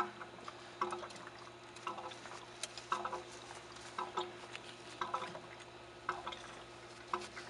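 Water dripping in a steady rhythm, about once a second, over a faint steady hum, with light clicks from a screwdriver working the motor's wire terminals.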